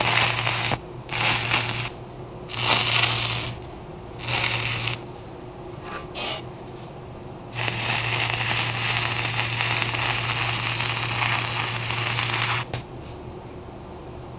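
Stick welding with 3/32" 6010 rods at 80 amps: the arc crackles with a low hum under it, in four short bursts over the first few seconds, then one steady run of about five seconds that cuts off sharply.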